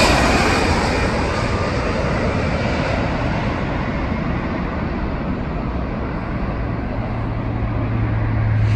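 Jet engines of a Delta Boeing 767-300 on landing approach passing low overhead. The roar fades steadily and loses its high hiss as the airliner moves away toward the runway.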